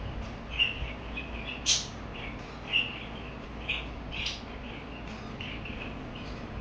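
Pet parakeets chirping: short sharp calls about once a second, with softer chattering between them.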